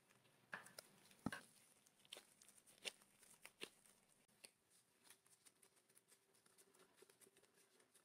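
Faint taps and soft rustles of gloved hands working balls of soft bread dough on a wooden cutting board, with a few sharper knocks in the first half.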